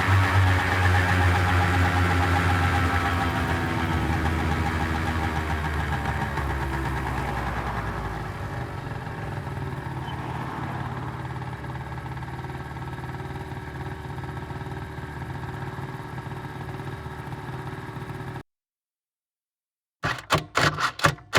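Motor scooter engine running, its pitch dropping a little at first and its sound fading over several seconds, then holding steady at a lower level until it cuts off abruptly. After a couple of seconds of silence, a short run of rapid pulsing sounds plays near the end.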